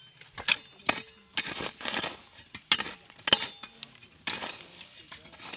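Metal hoe chopping into dry, stony soil: a string of irregular sharp strikes with a metallic clink, several followed by a short scrape of earth.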